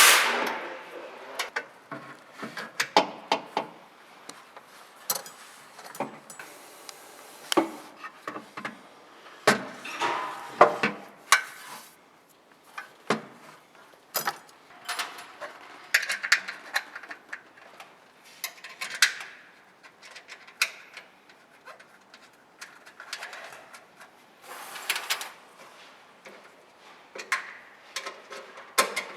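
Irregular clicks, taps and light knocks, coming one or a few at a time, with short pauses between them.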